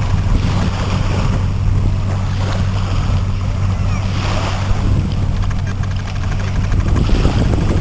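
Shallow sea water lapping and splashing around people sitting in it, over a steady low hum.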